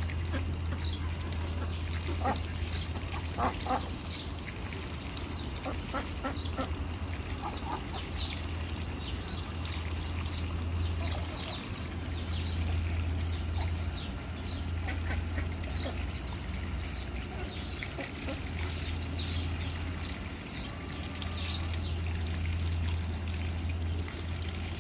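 Domestic ducks quacking now and then among short high chirps, over trickling water and a steady low hum.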